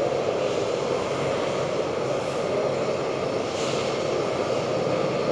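Steady mechanical background rumble with no distinct events.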